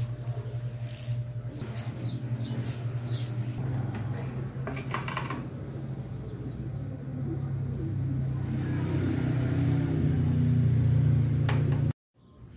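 Small metal parts and tools clinking as the sprocket cover of a Harley-Davidson is taken off, several sharp clinks over a steady low hum that grows louder near the end.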